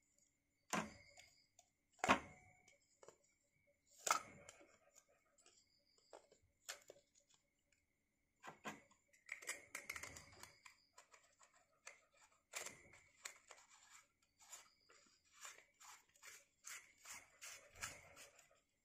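Metal clinks and knocks of D-cell batteries and a chrome-plated metal torch body being handled: a few sharp separate knocks in the first half, then a quicker run of small clicks and rattles as the torch is turned in the hands.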